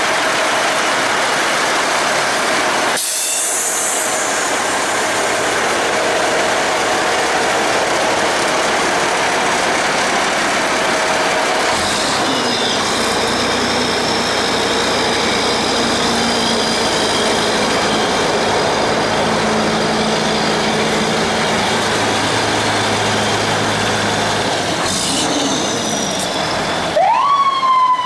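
A retired 1995 HME fire engine's diesel engine idling steadily. Near the end its siren winds up into a wail that rises quickly and then falls slowly.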